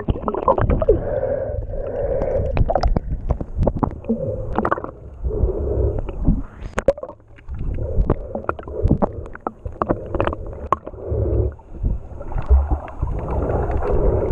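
Muffled underwater gurgling and sloshing picked up by a camera in a waterproof housing below the surface. It comes in uneven surges with many sharp clicks and knocks, over a low rumble.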